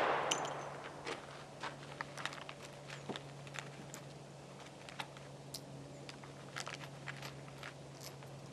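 A loud noise dies away over about the first second. Then come faint, scattered small clicks and taps of handling, irregular and a few a second, over a steady low hum.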